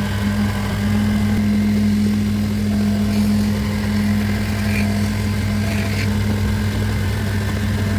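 Electric motor of a woodworking machine running with a steady hum, with a few faint brief scrapes about halfway through.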